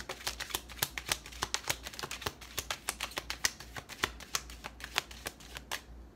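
A deck of oracle cards being shuffled and handled by hand: a quick, irregular run of crisp card clicks and slaps, several a second, that stops shortly before the end.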